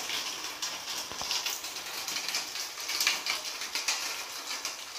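Spray of water pattering and hissing against tiled wall cladding as the wall is wetted down to trace a leak.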